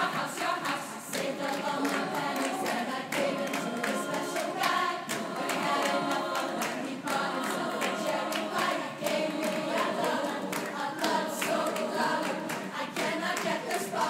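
Women's choir singing a cappella with many voices in shifting chords, over sharp rhythmic hand claps.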